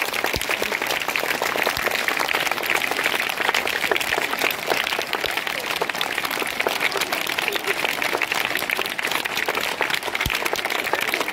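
A large crowd of schoolchildren clapping continuously, a dense, steady patter of many hands.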